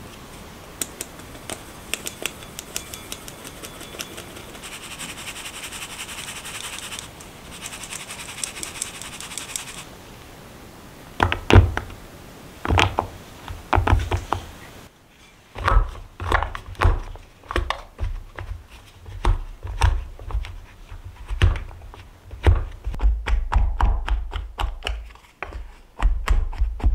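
Flour being sifted through a fine-mesh metal sieve into a glass bowl: a steady rasping hiss with light ticks of the sieve being tapped. After a few louder thumps near the middle, an orange plastic scraper chops cold butter cubes into the flour, knocking against the bottom of the glass bowl about twice a second and faster near the end, cutting the butter in until the mix is crumbly and rice-grain sized.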